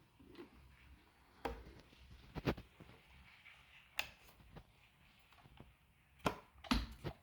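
A few sharp clicks and knocks, seconds apart, from a Lefant P1 robot vacuum cleaner being handled, with no motor running: the vacuum does not respond.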